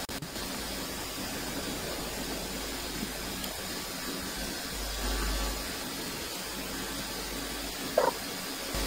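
Steady background hiss and low hum of a room and microphone with nobody speaking, a short faint sound just before the end.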